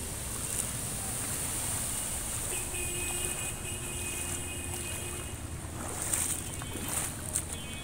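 Floodwater sloshing in a steady, noisy rush with a low rumble underneath. A faint steady tone comes in for about two and a half seconds in the middle, and a few light clicks sound near the end.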